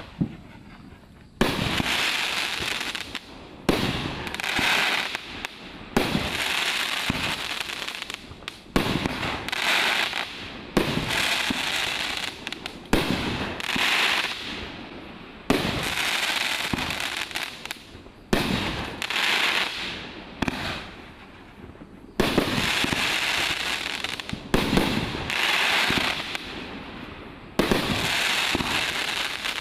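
A Cannon Brand 'Extreme Danger' 16-shot consumer fireworks cake firing its shots one after another, starting about a second and a half in. Each shot is a sharp report followed by a second or so of hissing crackle as it breaks, roughly one every one to two seconds.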